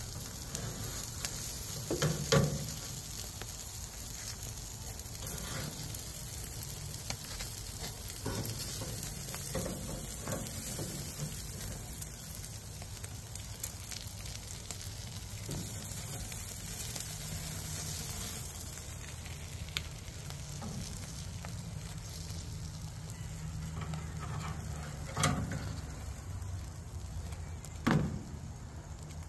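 Salmon fillets sizzling on a grill over hot coals, a steady hiss throughout. A few sharp knocks break in, one early on and two near the end.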